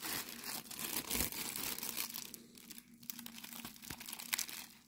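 Plastic bag and bubble wrap crinkling and rustling as a laptop keyboard is slid out of its bag, in irregular crackles that trail off near the end.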